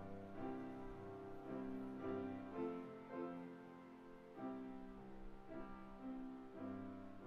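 Grand piano playing slow, held chords that change about once a second.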